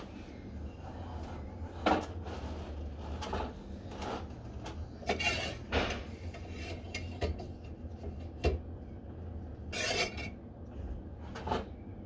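Scattered metallic clinks, knocks and scraping as the arm and fittings of a Lockwood overhead door closer are handled and fitted, over a steady low hum.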